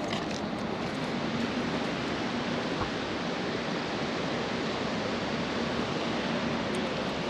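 Steady rush of water in a dam's outflow channel, an even, unbroken hiss.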